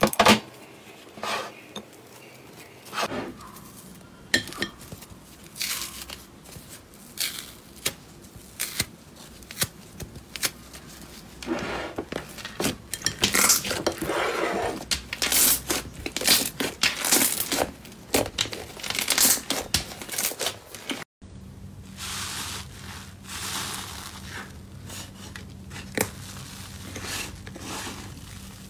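Hands stretching, pulling and kneading thick slime in a glass container, making a dense run of sticky crackles and pops. About two-thirds of the way through, this gives way to bubbly slime pulled into strings in a plastic bowl, with the same crackling.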